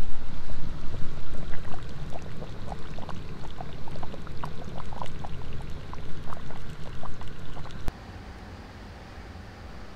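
Pot of stew boiling over a small wood fire: a steady bubbling with many small pops over a low rumble. It cuts off about eight seconds in, leaving a quieter steady background.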